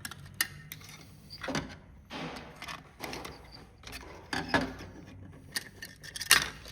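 Plastic remote control case being forced open by hand: a string of sharp clicks and cracks as the snap-fit clips give way, with short scraping between them and the loudest snap about six seconds in.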